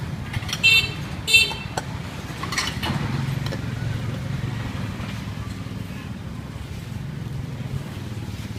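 A vehicle horn beeps twice in quick succession about a second in, over the steady low rumble of street traffic.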